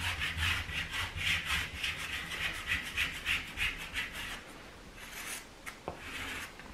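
Styrofoam ski cork rubbed quickly back and forth over kick wax on a cross-country ski base, corking the wax into the kick zone. Even scraping strokes, about four a second, turn fainter and sparser after about four seconds.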